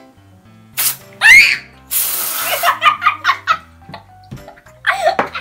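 Children laughing and shrieking over background music, with a short burst of hiss about two seconds in, then rhythmic bursts of laughter.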